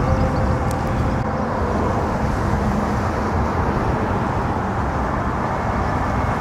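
Steady roar of highway traffic passing nearby.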